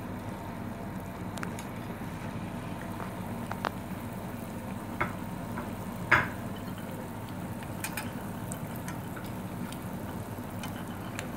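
Spring rolls deep-frying in a pan of hot oil: a steady sizzle with occasional sharp pops.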